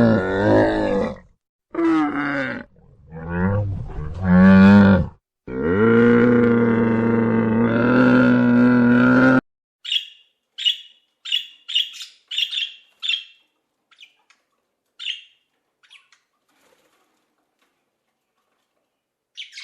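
An animal's loud, low-pitched calls: several short calls, then one long drawn-out call of about four seconds. These are followed by a series of short, high chirps, about one or two a second, that thin out and stop, with a few more chirps right at the end.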